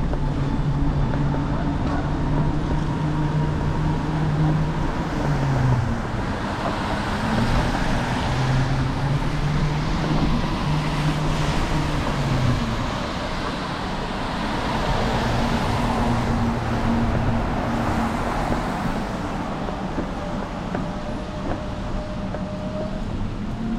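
City street traffic: vehicle engines humming and tyre noise from cars passing one after another, swelling and fading.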